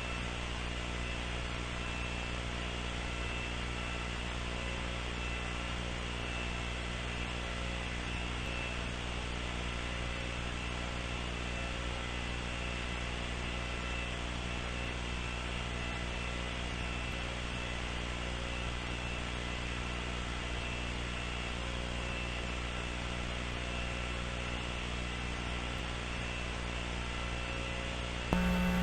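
Steady electrical hum over a hiss of static, with several steady tones held throughout. Near the end, a louder low buzz cuts in suddenly.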